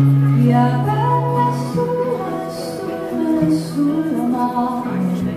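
A woman singing into a microphone while playing an acoustic guitar, live and amplified, with held bass notes under a wavering sung melody.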